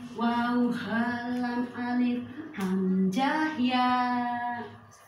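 A woman's voice singing the names of the Arabic hijaiyah letters in a sing-song chant, each syllable held on a steady note and stepping up and down in pitch; it stops shortly before the end.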